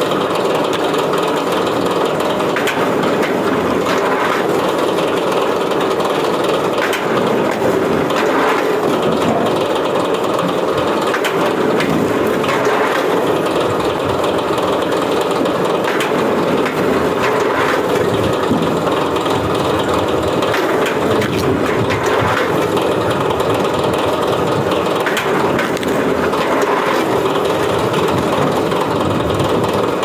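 Horizontal log splitter running steadily, with logs cracking and splitting on its wedge every few seconds as they are fed through.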